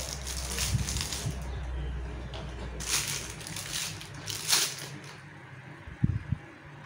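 Clear plastic packaging crinkling as a handheld radio antenna is unwrapped, loudest about three and four and a half seconds in, then two short knocks of the antenna being handled against the radio about six seconds in.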